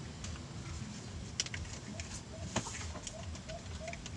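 A chicken clucking faintly, starting about halfway: an even run of short notes about four a second, over a low steady rumble. Two light clicks come before it.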